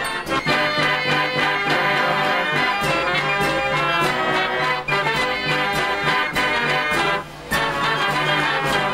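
A 96-key Marenghi fairground organ playing a lively tune, its pipes and brass-toned ranks sounding together over a steady beat. There is a short break in the music about seven seconds in.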